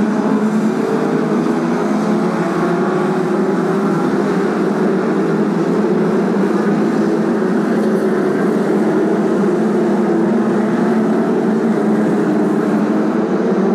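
A pack of BriSCA F2 stock cars racing, several engines running together loud and steady.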